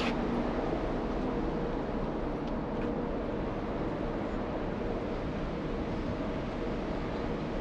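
Steady rushing drone of a ferry under way, heard from its open deck: engine and wind noise with a faint low hum held throughout.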